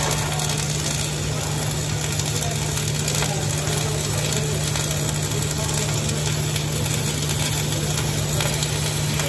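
Electric arc welding on steel pipe: a continuous crackle and hiss of the arc with a steady low hum, unbroken and even in level throughout.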